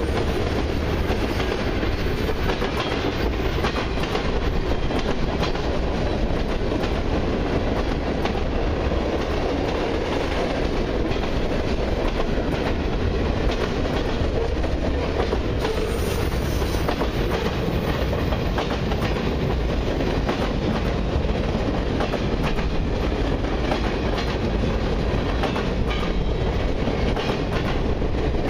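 Freight cars of a long mixed train rolling steadily past at close range: a continuous rumble of steel wheels on rail, with the clickety-clack of wheels over the rail joints.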